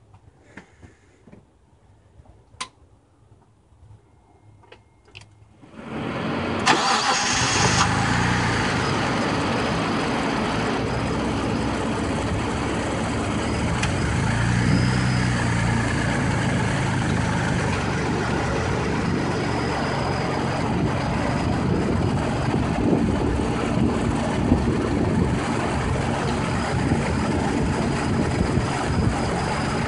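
A few faint clicks, then about six seconds in a 1992 Mitsubishi 3000GT VR-4's twin-turbo 3.0 L V6 cranks and starts. It runs on steadily at idle, loud, with a noise from the engine bay that the owner cannot place and says grows louder with revs.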